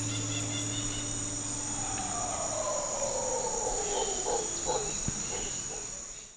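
Rainforest insects, crickets or similar, keeping up a steady high-pitched trill. A long call glides downward in pitch through the middle, and the whole sound cuts off suddenly at the end.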